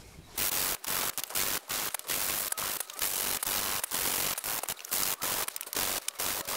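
Small wooden piece rubbed back and forth by hand on a sheet of sandpaper laid flat on a workbench, hand-sanding its edges: a scratchy hiss in repeated strokes, about two to three a second, starting about half a second in.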